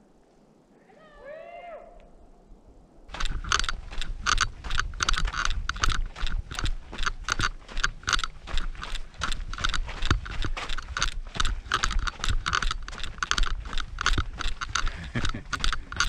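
Running footsteps crunching on a dirt and gravel trail, several quick steps a second, starting about three seconds in, over a low rumble from wind and a moving camera. Before that, a brief faint chirp.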